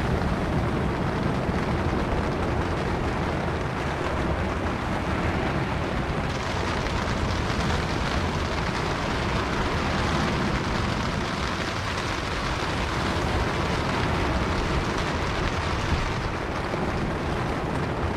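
Strong wind buffeting the microphone over the steady rush of rough surf breaking on a sandy beach. A brighter hiss rises in the middle of the stretch and drops back near the end.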